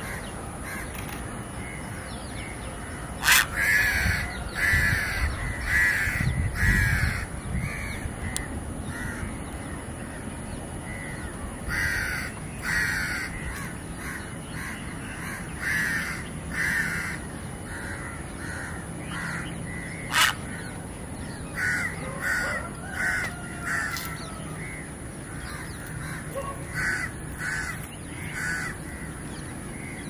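Crows cawing in repeated runs of several harsh calls every few seconds, with two sharp clicks, one a few seconds in and one about two-thirds of the way through.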